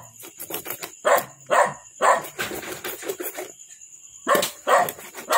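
A dog barking repeatedly, about seven barks with one longer run of calls near the middle. Light knocks of a cleaver chopping duck on a plastic chopping board sound between the barks.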